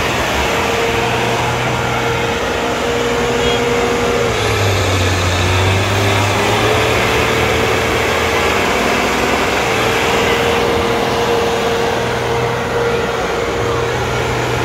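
Tractor engine running hard, its pitch sagging about four seconds in and climbing back over the next couple of seconds.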